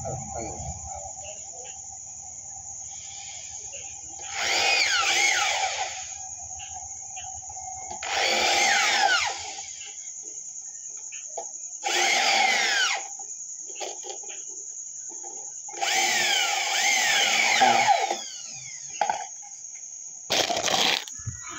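Handheld electric drill run in short bursts of a second or two at the joint of a PVC borewell casing pipe, about five times, the last burst the shortest, its motor pitch sliding as it speeds up and slows. A steady chirring of crickets runs underneath.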